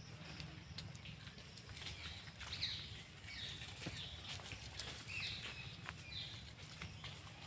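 A baby rhesus macaque gives short, high-pitched squeaky calls, about five of them starting around two and a half seconds in, with small scattered clicks.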